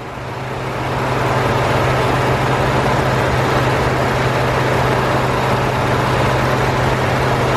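Ford 3.5-litre twin-turbo EcoBoost V6 idling in an F-150, heard close up in the open engine bay: a steady low hum under a dense whirr from the engine and its accessory belt drive, the belt running steadily. It grows louder over the first second, then holds steady.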